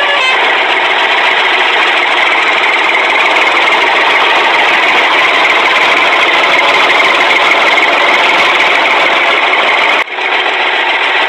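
A motor running steadily with a loud, buzzy, even noise and no deep rumble. It breaks off about ten seconds in, and music with plucked guitar comes back.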